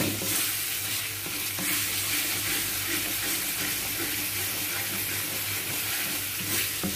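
Ground spice paste with lemongrass and lime leaves sizzling as it is dry-fried in a wok and stirred and scraped with a wooden spatula, the paste being toasted until fragrant. A low steady hum runs underneath.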